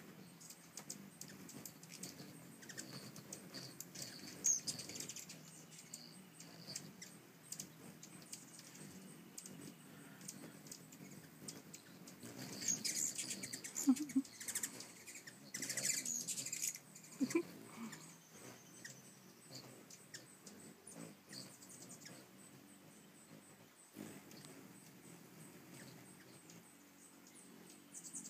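Hummingbirds squabbling around a feeder: rapid high-pitched chips and squeaky chatter, busiest in bursts about 4 seconds in and again between about 12 and 17 seconds, with a couple of brief low hums from wings as birds pass close.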